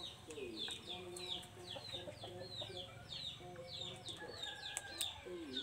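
Chickens: chicks peeping in a fast, even series of short, high, falling notes, about three a second, over lower clucking calls from a hen.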